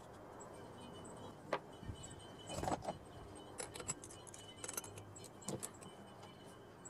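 Scattered light metallic clicks and clinks of a spark plug and spark plug socket being handled, taken out of an old Poulan two-stroke chainsaw, with a couple of louder knocks.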